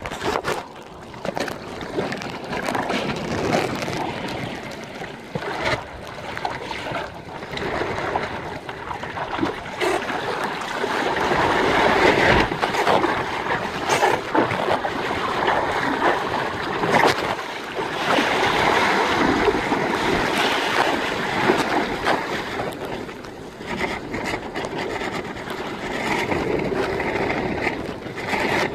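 Water splashing and sloshing around a wingfoil board, mixed with wind rushing over a phone microphone carried in a life-jacket pocket, with uneven knocks and rubbing.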